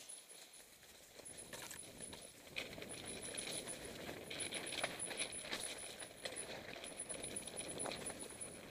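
Mountain bike rolling down a loose rocky scree trail. The tyres crunch over stones, with many short clicks and knocks from the bike jolting over the rocks, getting louder after a couple of seconds.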